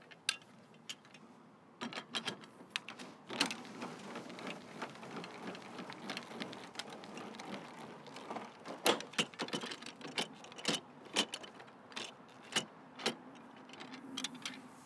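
Fiamma wind-out awning on a motorhome being wound in by hand with its crank handle: the winding mechanism gives an uneven run of clicks and rattles, thickening about two seconds in.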